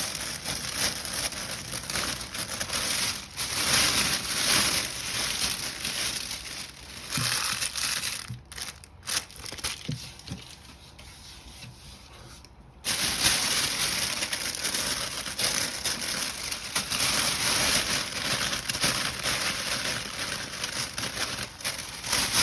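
Plastic gift bag and packing shred being handled, crinkling and crackling continuously. It goes quieter for a few seconds around the middle, then starts again abruptly.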